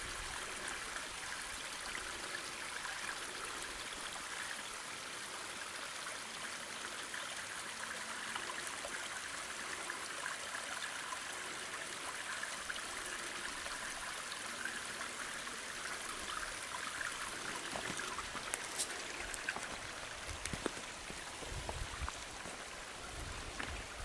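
Small rocky creek running and splashing over stones: a steady rushing hiss. A few light knocks and low bumps come near the end.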